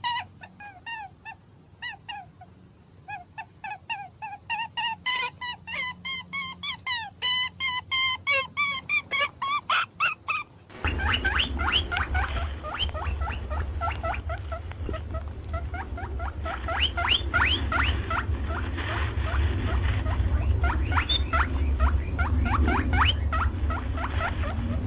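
Small animals squeaking in rapid strings of short, high, pitched calls, several a second. Partway through the sound changes to a different recording, where quicker squeaks that each slide downward sit over a loud low rumble.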